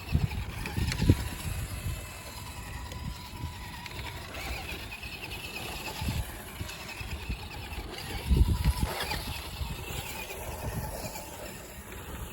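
Wind buffeting the microphone in irregular low rumbling gusts, strongest about a second in and again near two-thirds of the way through, with a faint thin whine coming and going.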